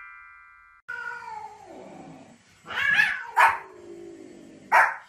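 A cat meowing in two long, drawn-out calls that fall in pitch, while a white Pomeranian answers with three short, sharp barks, the loudest sounds.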